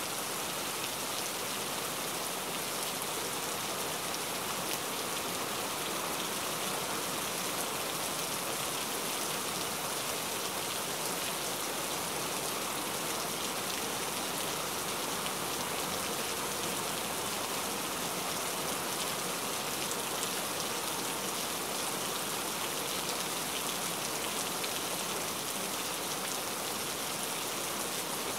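Steady, even hiss of water, like rain falling on the river's surface, with no separate splashes standing out.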